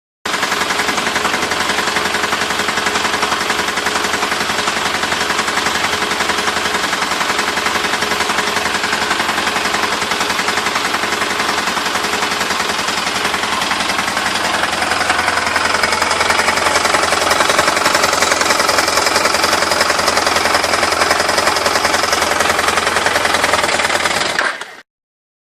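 Suzuki GS500E's air-cooled parallel-twin engine running with a rapid, steady mechanical clatter, which the owner calls engine rattling. It grows a little louder about halfway through and cuts off suddenly near the end.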